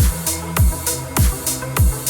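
Electronic dance background music with a heavy kick drum falling in pitch on each beat, about one every 0.6 s, over a steady bass line.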